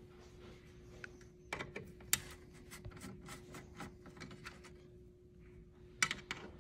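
Screwdriver working out the screws that hold a speaker's metal frame in an intercom housing: scattered small clicks and scrapes, a sharper click about two seconds in and a cluster of clicks near the end. A faint steady hum runs underneath.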